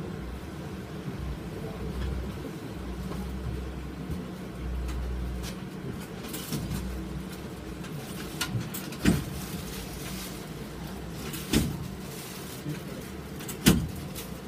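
Tram standing at a stop, heard from inside the car: a steady electrical hum with a low rumble that swells and fades in the first half. Three sharp knocks come in the second half.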